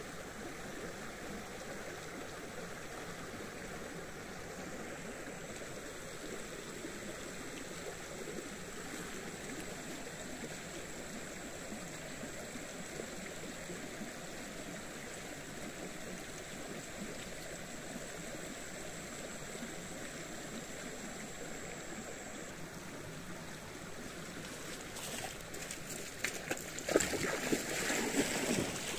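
Steady sound of trickling, gurgling water. A thin, high steady tone runs through the middle stretch, and louder, irregular sharp sounds come in the last few seconds.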